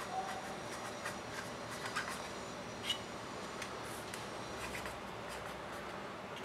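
Kalam dip pen scratching across notebook paper in short, separate strokes of ink calligraphy, with one slightly louder tick about three seconds in.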